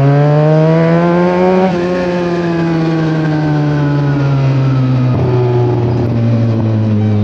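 Benelli 300 parallel-twin engine running loud through an aftermarket IXIL exhaust, with a smooth note much like an inline four. The revs climb for the first couple of seconds, ease down slowly, then hold steady.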